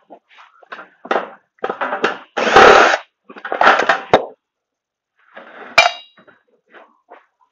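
Hand-tool work at a wooden bench: a screwdriver and metal scrap being scraped and knocked about in a string of short bursts, the loudest a heavy knock about two and a half seconds in. About six seconds in comes a single sharp metallic clink that rings briefly.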